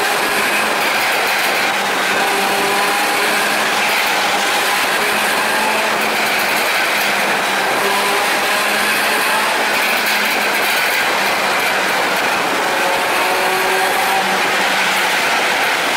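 Steady wind and road noise with the drone of a Suzuki SV400S motorcycle's V-twin engine at a steady cruise through a road tunnel.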